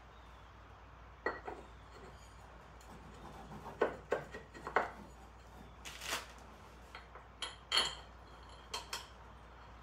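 Metal tools and parts clinking and clanking against each other during hand work under a lawn tractor: a dozen or so scattered knocks, a few of them ringing briefly.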